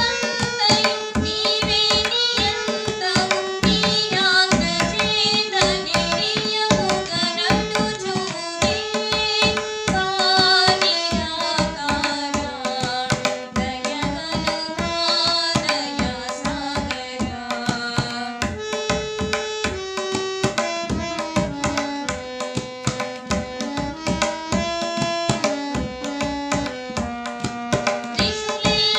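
Telugu devotional bhajan played on harmonium and tabla: the harmonium holds and steps between sustained reedy notes while the tabla keeps a quick, steady rhythm of strokes. A woman sings along in places, mostly in the first half and again near the end.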